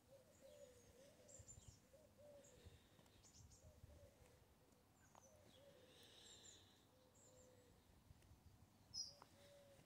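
Near silence with faint bird chirps now and then and one slightly louder chirp near the end, over a faint wavering hum.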